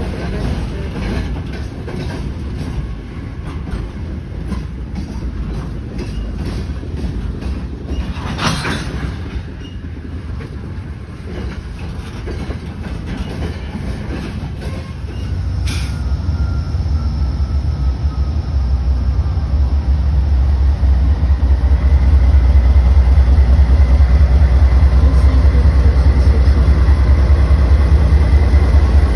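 Freight cars rolling past at close range, their wheels clattering over the rail joints, with a sharp knock about a third of the way in and another about halfway. In the second half a diesel-electric locomotive draws level, and its low engine rumble grows and then dominates.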